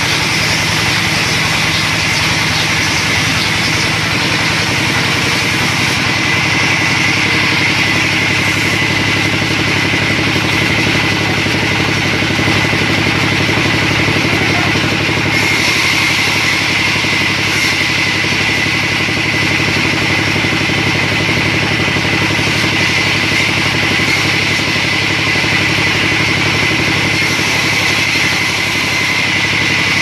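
A sawmill's vertical band saw running steadily as a log is fed through it: a constant machine drone with a loud, high cutting hiss on top that grows stronger about halfway through.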